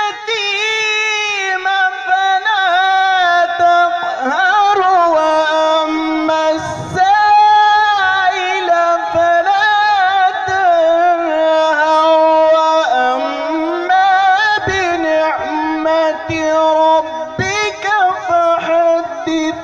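A male qari reciting the Quran in melodic tajweed style, chanting long, melismatic phrases whose held notes glide and wind up and down in pitch, with short pauses for breath between phrases.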